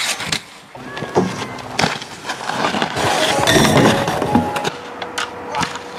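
Freestyle skis knocking, clattering and scraping on metal rails, a series of sharp knocks with sliding noise between them.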